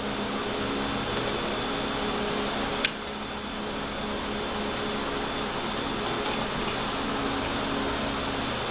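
Steady hum of a ventilation fan or air-conditioning unit, with one sharp click about three seconds in.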